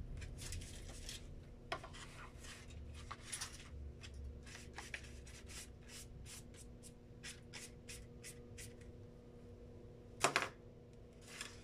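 Faint strokes of a paintbrush on paper, with light ticks and rubs as it moves. A louder, brief scrape comes about ten seconds in.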